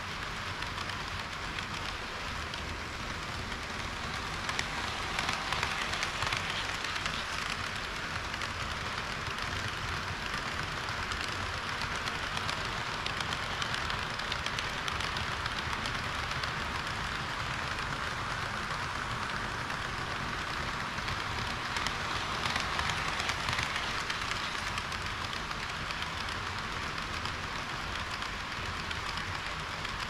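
HO-scale model trains, a tank-car train and a diesel railcar, running on the layout: metal wheels rolling on the track make a steady rattling rush that swells twice as cars pass close by.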